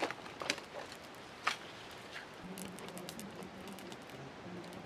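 Small open twig-and-leaf fire crackling under roasting catfish, with sharp pops at the start, about half a second in and about a second and a half in, and lighter ticks after. A faint low hum runs through the second half.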